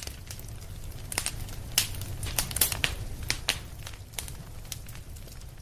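Wood campfire crackling: irregular sharp pops and snaps from the burning sticks over a low steady rumble of the flames.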